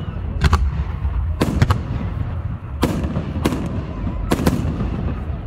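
Consumer fireworks cake firing, with aerial effects bursting overhead: a string of about seven sharp bangs at uneven intervals, some in quick pairs.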